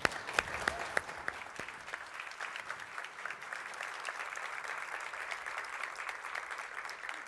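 Audience applauding steadily, a dense patter of many hands clapping, fading out just after the end.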